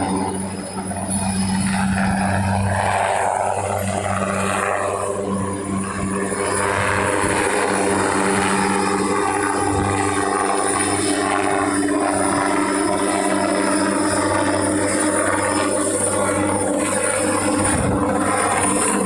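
Helicopter running steadily while lifting air-conditioning units: a loud, continuous drone with steady low tones from the rotor and engine.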